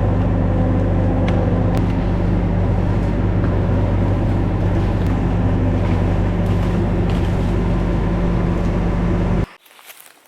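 Bobcat skid steer's diesel engine running steadily at high revs, then cutting off abruptly near the end.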